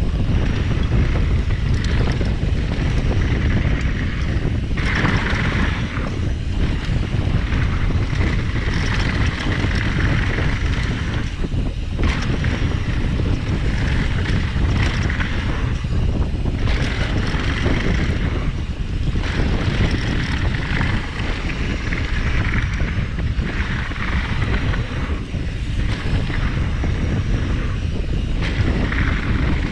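Wind rushing over the microphone of a rider-carried camera during a fast mountain-bike descent on a dirt trail: a steady low rush, with a higher hiss that comes and goes every few seconds.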